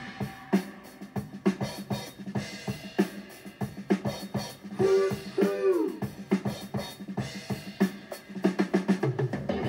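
Music with a steady drum beat playing from a vinyl LP on an Onkyo CP-1028R turntable: track three, which the turntable has found by its random-access search. A tone bends up and down about halfway through.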